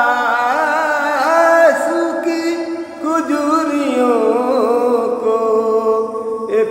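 A man singing an Urdu naat solo, holding long wavering notes that slide up and down between lines of the verse, with a short breath about three seconds in.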